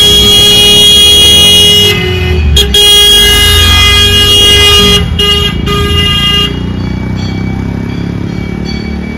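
A loud horn sounded in long blasts on one steady pitch rich in overtones: two long blasts, then two short ones, with weaker sustained tone after that. A low rumble lies underneath.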